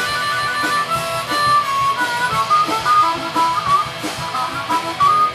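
Blues harmonica solo: a run of short notes, some bent, played through the band's amplification over electric guitar and a steady drum beat.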